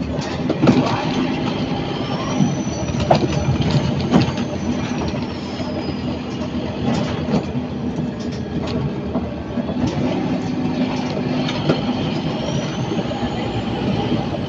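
Scania N230UD Omnicity bus's five-cylinder diesel engine running under way, with a high turbocharger whistle that rises and fades about two seconds in and rises again near the end. Rattles and knocks come from the bodywork throughout.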